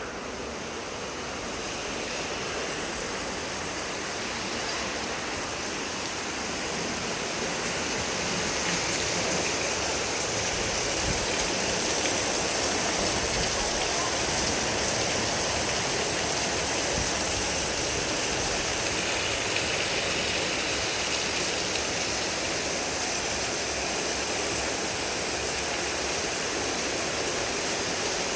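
Heavy rain falling steadily, a dense even hiss of water that grows a little louder over the first several seconds.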